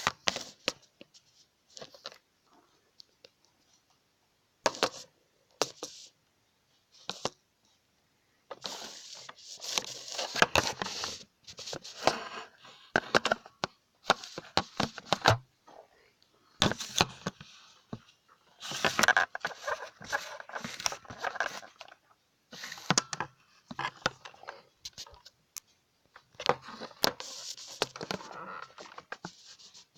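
Rustling, scraping and knocking handling noise close to the microphone, in irregular bursts: a few scattered clicks at first, then denser rustling and scraping from about eight seconds in.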